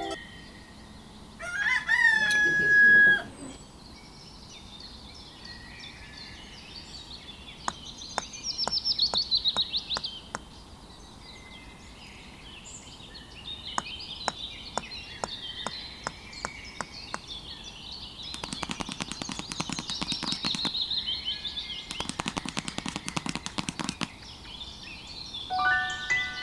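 A rooster crows once, loudly, near the start. Birds chirp after it, and rapid clicking rattles run through the second half: a farmyard sound effect.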